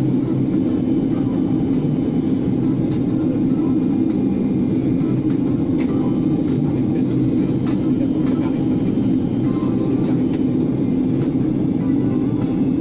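Steady low drone of an airliner's cabin in flight: engine and airflow noise, even in level throughout.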